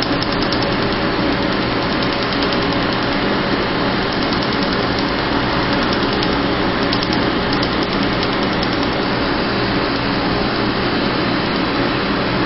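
Steady machine hum and rushing air from a tattoo-removal laser unit and the cold-air skin chiller blowing on the skin, with short runs of faint, rapid ticks as the laser pulses fire on the tattoo ink.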